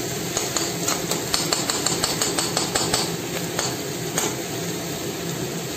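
Diced carrots, onion and tomato sizzling in oil in a wok, with a spatula clicking and scraping quickly against the pan as the vegetables are stirred, from about half a second in until nearly four seconds, then one last tap.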